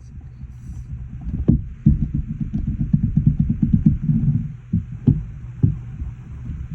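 A warped resin coaster rocking on a hard surface, its uneven base clattering in quick runs of knocks with a few single louder knocks.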